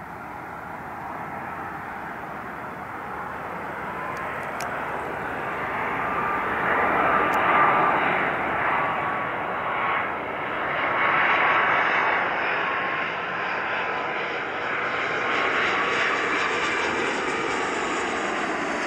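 Airbus A330-243's twin Rolls-Royce Trent 772 turbofans on final approach, a jet roar growing louder as the airliner draws near, loudest in the middle. A thin high whine joins about halfway through.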